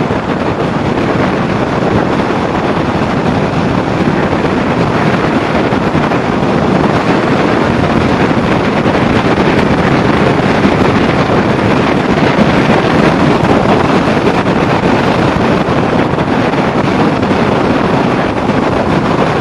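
Wind rushing over the microphone of a moving motorcycle, with steady engine and road noise underneath.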